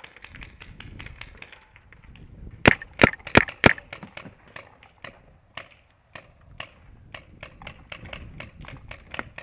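Paintball markers firing: four loud, sharp cracks in quick succession about three seconds in, against a steady scatter of fainter pops from markers across the field.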